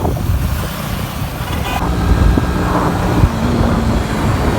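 Riding in road traffic: a vehicle engine running with a dense low rumble of traffic and road noise, and a short beep about a second and a half in.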